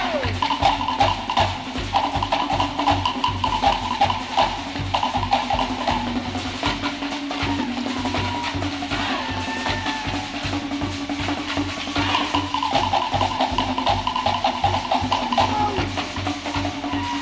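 Fast Cook Islands drum-dance rhythm on wooden slit log drums, with crisp rapid strokes over deeper drum beats; the strokes thin out mid-way and pick up again in full about three-quarters of the way through.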